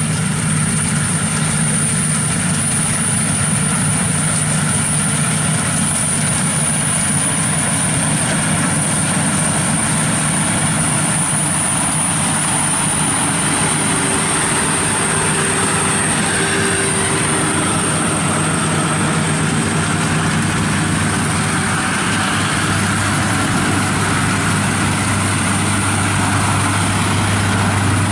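WD102PRO rice combine harvester running steadily while cutting and threshing rice, its engine and threshing machinery making a continuous hum. A deeper hum grows stronger about two-thirds of the way through as the machine comes closer.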